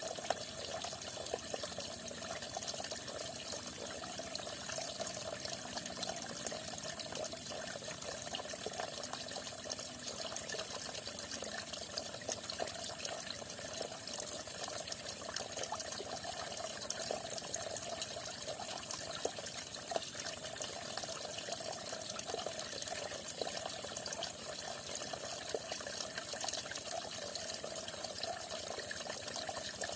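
Water falling and splashing steadily, a continuous even rush with fine spattering, unchanging throughout.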